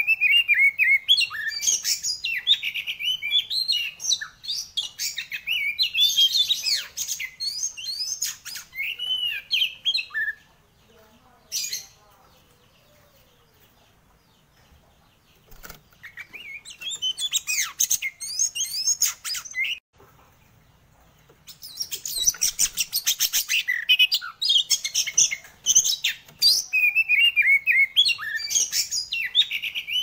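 Caged oriental magpie-robin (kacer) singing a loud, varied song of quick whistled and chattering phrases. It breaks off twice for a few seconds, and a fast, dense rattle comes about three-quarters of the way through.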